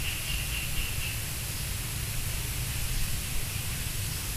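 Steady background hiss with a low hum underneath: room tone and microphone noise on a voice-over track, with no distinct event.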